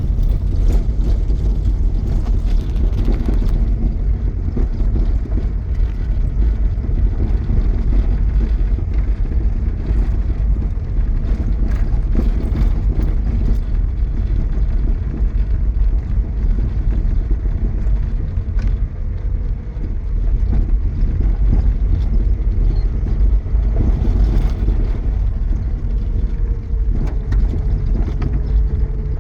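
Steady low rumble of a moving vehicle's engine and road noise. A faint steady hum joins near the end.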